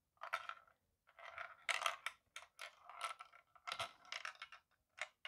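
A small ball rolling and clattering through the tilted plastic bricks of a LEGO 40596 Magic Maze, in repeated short bursts of rattling and clicking.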